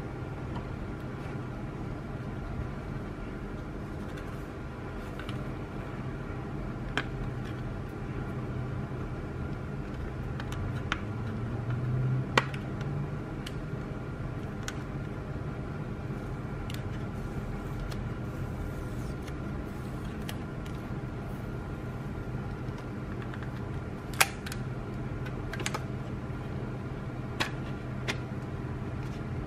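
Art-supply packaging handled by hand: scattered sharp clicks and taps of a plastic pen case and a cardboard-sleeved pencil tin. The loudest come about twelve seconds in and again near the end. A steady hum runs underneath.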